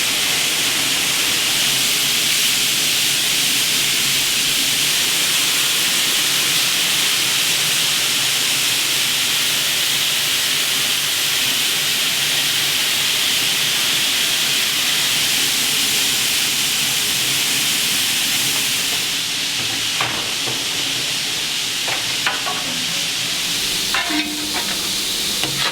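Steam hissing steadily from a South African Class 26 4-8-4 steam locomotive being steamed for the first time after restoration. The hiss eases a little in the last few seconds, with a few faint clicks.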